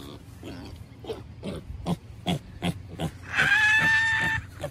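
A young pig being held gives a run of short grunts, about two a second, then a loud, steady, high squeal lasting about a second.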